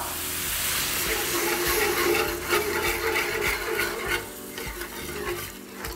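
Chicken broth poured into a hot skillet of onions, curry powder and flour, sizzling hard as the cold liquid hits the pan and starts turning the roux into a sauce. About four seconds in the sizzle dies down and a wire whisk scrapes and stirs through the thickening sauce.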